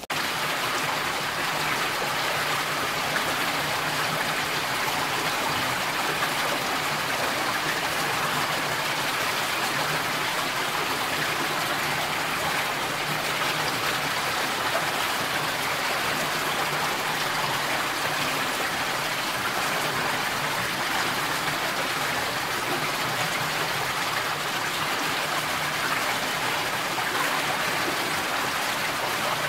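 Steady rush of flowing water, an even hiss-like noise with no breaks and no animal calls.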